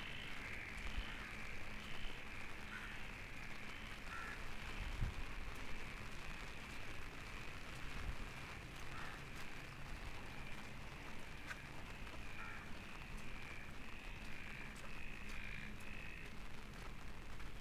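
Birds calling over and over in short rasping calls, over a faint steady hum and low rumble.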